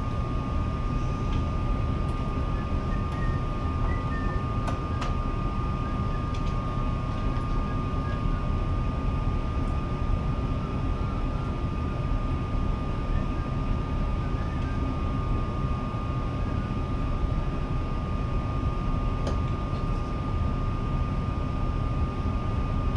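Steady machine drone with a constant high whine running through it, and a few faint clicks.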